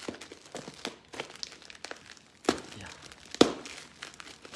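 Plastic parcel wrapping crinkling and crackling as it is cut open with scissors: a run of small crackles, with two louder ones about two and a half and three and a half seconds in.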